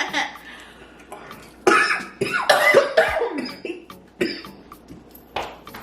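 A person coughing in a string of harsh bursts, the loudest about two to three seconds in, with shorter coughs after it: coughing from the burn of extra-hot chicken.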